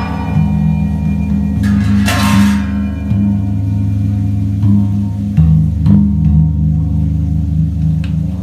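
Large Balinese hanging gongs struck in turn with padded mallets, ringing long, deep tones that pulse and overlap. A brighter metallic crash sounds about two seconds in, and a few lighter strikes come later.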